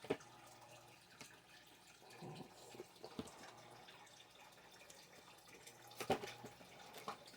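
Faint, scattered clicks and taps of small items being handled, about five over several seconds, the loudest about six seconds in.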